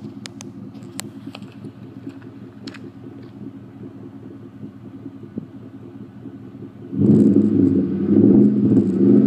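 Ford F-150's 5.0-litre V8 idling steadily through a Roush cat-back exhaust. About seven seconds in, the throttle is opened and the exhaust runs much louder and rougher.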